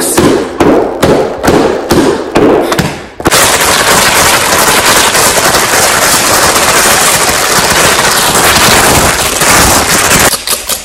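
A quick run of thumps from a hardcover textbook handled close to the microphone. About three seconds in, a clear plastic bag is crinkled hard right at the microphone, a loud, dense crackling that lasts about seven seconds and stops near the end.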